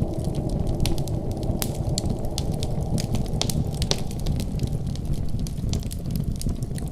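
Wood fire crackling in a fireplace: many quick, irregular sharp pops over a steady low rumble.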